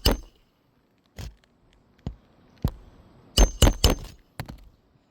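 Hammer driving roofing nails into asphalt shingles. There are single knocks in the first half, then a quick run of about four hard strikes with a metallic ring a little past halfway, and two lighter taps after that.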